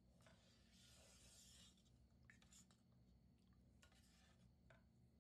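Near silence, with a faint rubbing noise lasting about a second and a half, then a few light clicks.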